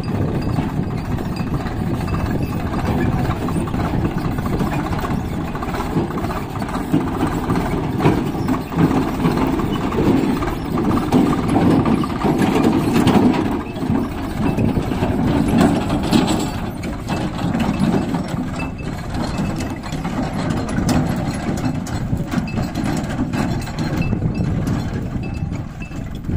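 Diesel tractor engine running steadily, its sound swelling and easing as it works.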